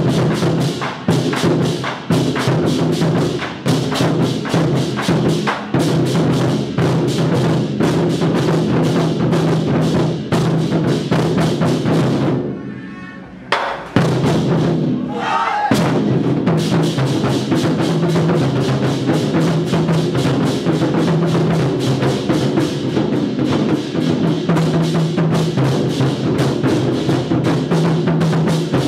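Ensemble of Chinese war drums (zhangu): several barrel drums beaten together in a fast, dense rhythm. The drumming breaks off briefly about twelve seconds in and starts again about a second and a half later.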